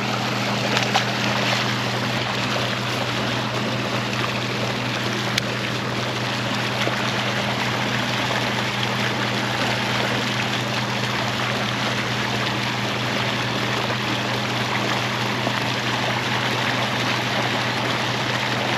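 Steady rush of water from a warm-water discharge outflow pouring into the river, with a steady low hum underneath.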